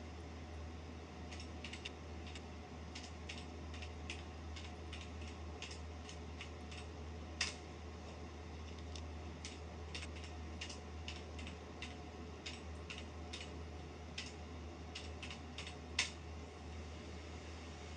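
Typing on a computer keyboard: an irregular run of key clicks as DOS commands are entered, with a single louder keystroke about seven seconds in and again near the end, each as Enter sends a command. A steady low hum runs beneath.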